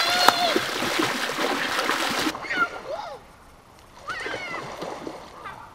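A hooked salmon splashing and thrashing in the shallows at the bank as it is landed, loudest in the first two seconds. A child's high-pitched voice calls out at the start and again several times in short cries later.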